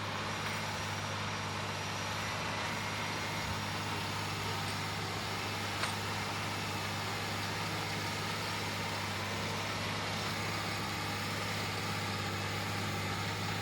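John Deere 9360R tractor's diesel engine running at a steady, unchanging drone.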